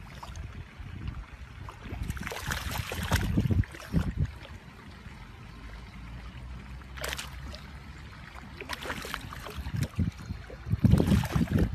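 A pug wading in shallow water, its paws splashing and stirring the water in several irregular bursts.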